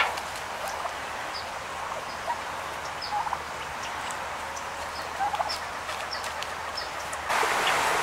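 Wild turkeys making a few soft, short calls while foraging, with scattered faint high chirps. About seven seconds in, a louder steady background hiss takes over.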